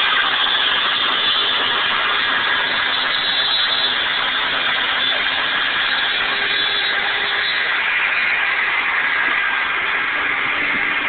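CNC router table's router spindle at 24,000 rpm, running a 1/8 in two-flute carbide down-cut bit through the sheet. It makes a steady whine mixed with cutting noise that holds at an even level throughout.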